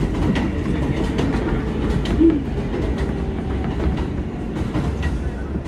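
R143 subway train running on elevated track, heard from inside the car: a steady low rumble of wheels on rail with a quick run of clicks from the rail joints, as it enters a station.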